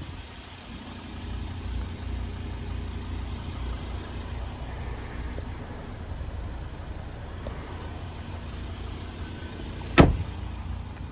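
Ford Ranger's 3.2-litre five-cylinder turbo diesel idling with a steady low rumble, heard through the open driver's door. About ten seconds in, a single sharp thump from the door being shut.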